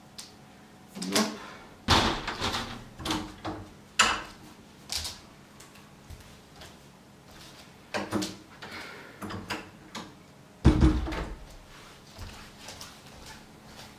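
Interior door opening, then a series of knocks and bumps from rummaging through a room, with a heavier thud late on.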